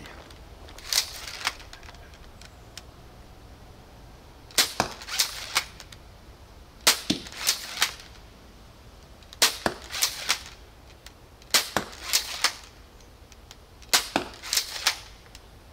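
3D-printed repeating crossbow (Faramir Mini Adder) shooting in quick succession. Each shot is a cluster of sharp snaps and clacks, coming about every two to two and a half seconds.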